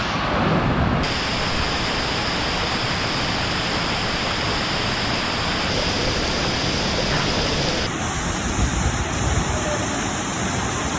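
Looking Glass Falls pouring into its plunge pool: a steady, full rush of falling water with no let-up, its tone shifting slightly about a second in and again near the end.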